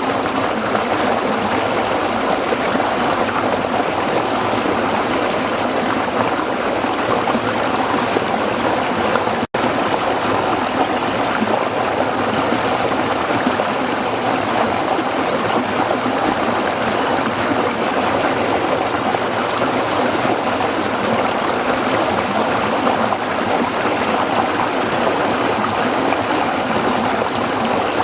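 Waterfall: a steady, even rush of falling water, which cuts out for an instant about nine and a half seconds in.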